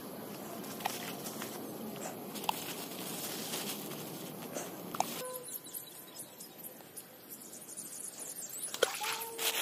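Outdoor ambience with light rustles and scattered clicks, as from a plastic bag being handled. About five seconds in it cuts to a quieter background with a faint steady hum, and the clicks and rustles pick up again near the end.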